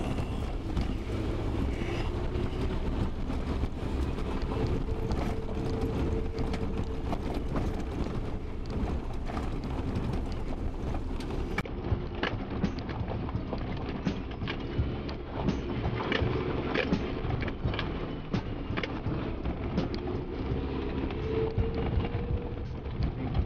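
Suzuki Jimny kei 4x4 driving slowly over a rough dirt track, heard from inside the cab. The engine hums steadily and rises in pitch a couple of times, while the body and cabin keep up frequent small knocks and rattles over the bumps.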